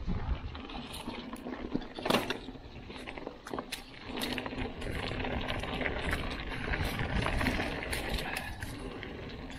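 Mountain bike rolling down a dirt singletrack: tyres on packed dirt and dry leaves with frequent sharp clicks and rattles from the bike, and wind rumble on the microphone. A loud knock about two seconds in, and a steadier, louder rush from about four seconds in as the bike gathers speed.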